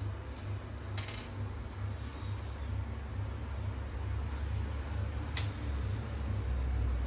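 A few small metallic clicks and taps from handling parts inside an opened all-in-one PC, the clearest about a second in, over a steady low hum.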